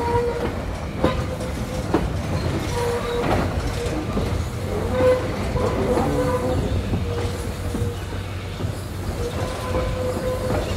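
Narrow-gauge (1067 mm) passenger carriages rolling along the track, heard from the brake van: a steady rumble with a few sharp clicks of the wheels over rail joints. A squeal of the wheels on the curving track keeps starting and stopping.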